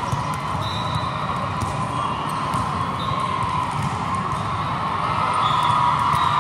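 Steady din of a busy volleyball-tournament hall, with volleyballs bouncing and being struck on hard courts and a few brief high squeaks.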